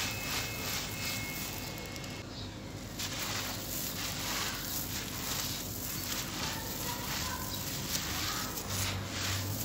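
Crumbly, gritty moulded concrete being crushed by hand, with loose grains sifting through the fingers and pattering down in repeated dry, crackling strokes.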